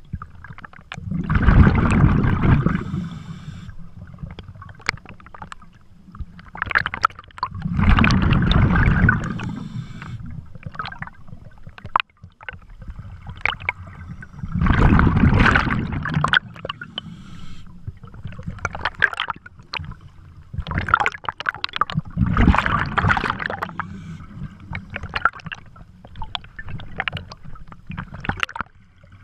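Scuba diver's exhaled breath bubbling out of the regulator underwater: four long gurgling bursts about seven seconds apart, with softer clicks between.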